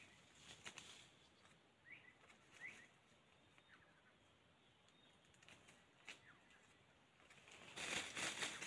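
Faint, short bird chirps, a couple of them rising quickly about two seconds in, then a louder burst of rustling near the end.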